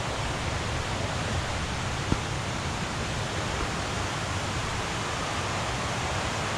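Steady rushing roar of a mountain creek swollen with storm runoff, whitewater running high and fast. A single light click sounds about two seconds in.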